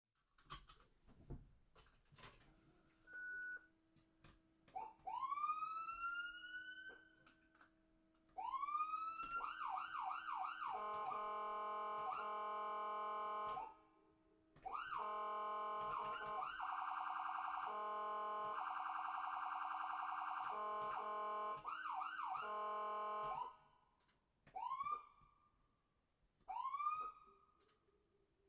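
Electronic ambulance siren cycling through its tones. It opens with single rising whoops that climb quickly and level off, then a quick run of short rising yelps, then long steady horn blasts with a fast warbling stretch in the middle. Near the end it returns to short single whoops.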